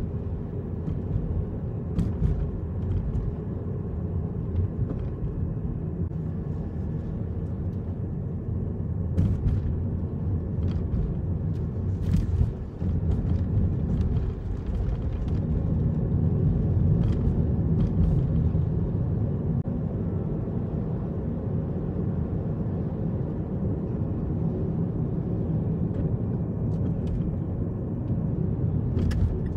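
Car cabin noise while driving: the steady low rumble of the engine and tyres on the road heard from inside the car, with a few light clicks scattered through it.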